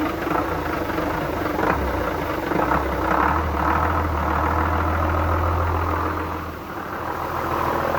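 Small engine idling, run to check for a rocker arm knocking noise. The low hum grows stronger about three seconds in and eases off briefly near seven seconds.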